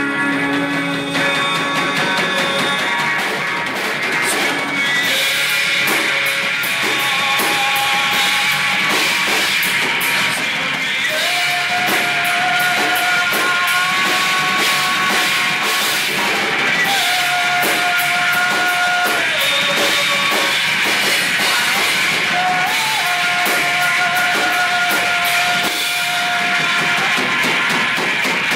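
Live rock band playing loudly: electric guitars over a drum kit with steady drum and cymbal hits, and long held notes ringing out through the middle of the passage.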